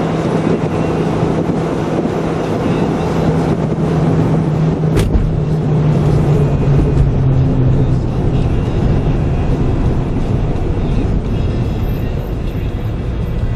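Car driving: engine and road noise with a steady low hum, picked up by a camcorder's built-in microphone on a mount fixed to the car. A single sharp click about five seconds in.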